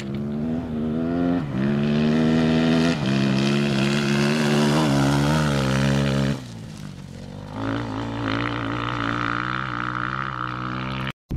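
Rally motorcycle engine at hard throttle, its pitch climbing and dropping sharply with two gear changes in the first three seconds, then wavering before the sound falls away sharply about six seconds in. A quieter engine note then runs more steadily.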